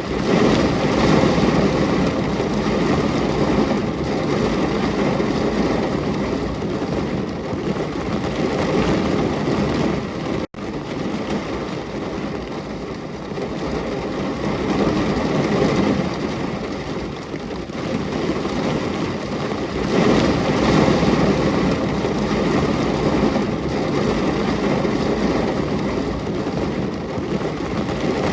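Steady heavy rainfall, a continuous wash of noise that swells and eases every several seconds. The sound cuts out for an instant about ten seconds in.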